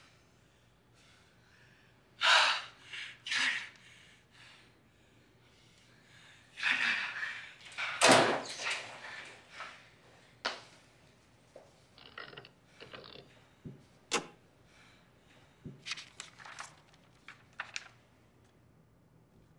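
Knocks and thuds, door-like: two sharp hits a couple of seconds in, a louder clattering stretch in the middle, then a run of lighter clicks and taps.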